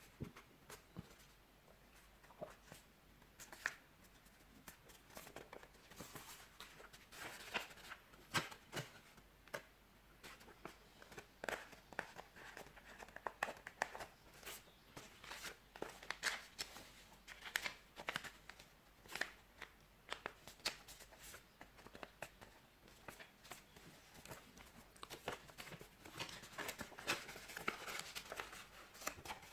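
Sheet of paper being handled and folded by hand: irregular rustles and crinkles with short, sharp creasing clicks.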